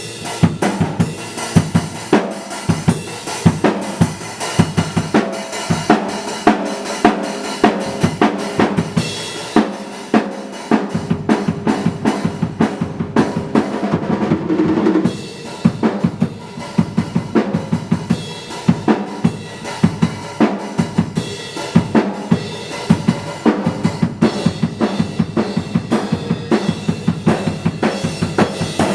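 Drum kit played in a steady, busy groove of kick, snare and rimshot hits, with pitched backing music underneath.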